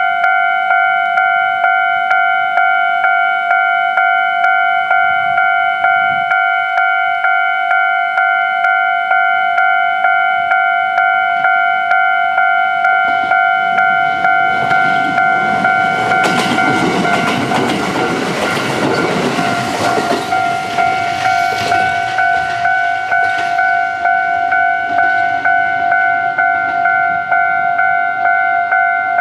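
Japanese level-crossing warning bell ringing steadily at about one and a half strikes a second, while a Kintetsu 1437-series electric train runs over the crossing. The train's rumble builds about halfway through, peaks, and fades again a few seconds before the end.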